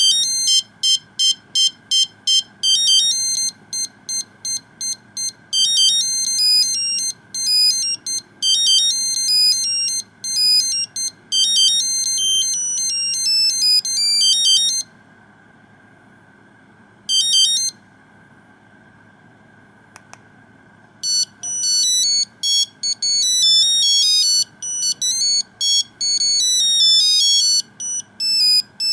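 Nokia 2100 mobile phone playing its built-in monophonic ringtones: quick melodies of single beeping notes. One melody stops about fifteen seconds in, a short phrase plays a couple of seconds later, and another melody starts about twenty-one seconds in.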